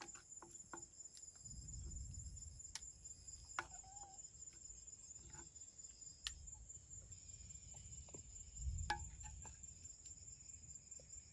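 Crickets trilling steadily and faintly in the background, with scattered soft clicks and taps.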